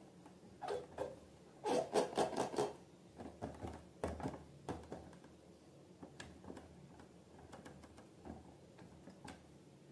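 Close-up handling sounds from slime making: irregular sticky crackles and rubbing, with a quick run of crackles about two seconds in and scattered softer ones after.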